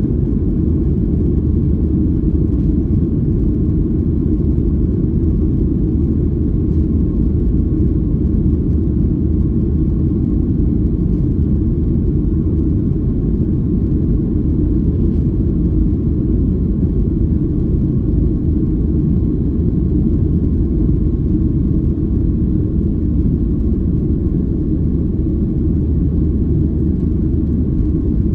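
Cabin noise of a Boeing 737-700 taxiing: its CFM56 engines at low thrust and the rolling airframe make a steady low rumble, with a faint steady whine above it.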